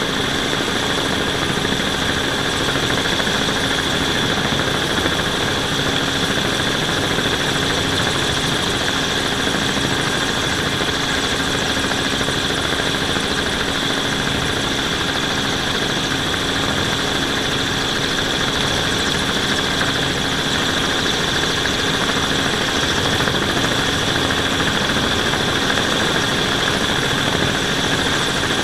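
Steady whine of a quadcopter drone's motors and propellers as heard from the camera it carries, a constant hum with high-pitched tones over it that do not change.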